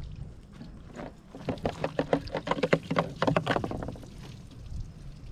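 Water glugging and splashing as a plastic water jug is tipped over and emptied, in a run of irregular gushes that peaks about a second and a half in and fades by about four seconds.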